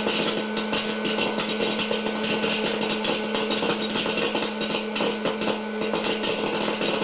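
A small motorized toy running: a steady buzzing hum with a fast, uneven rattle over it.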